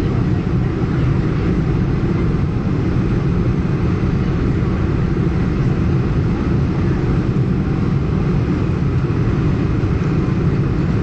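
Steady low roar of a Boeing 747-400's four turbofan engines and the rushing airflow, heard inside the passenger cabin during the landing approach with the wing flaps extended.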